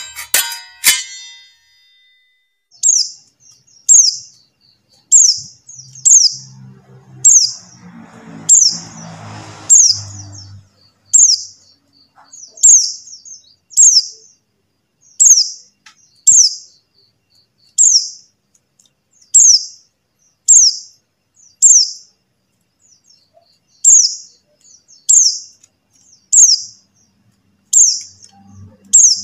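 Female pleci buxtoni white-eye giving its call over and over: short, high, downward-sliding chirps about one a second. Faint low rumble about a third of the way in.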